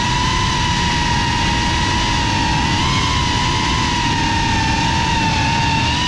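GEPRC FPV quadcopter's brushless motors and propellers whining steadily in flight, the pitch wavering slightly with the throttle, over a low rushing noise.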